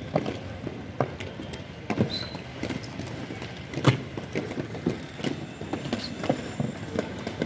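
Inline skates striding on concrete paving: wheels rolling and clacking irregularly as the skaters push off, with one sharper knock about four seconds in.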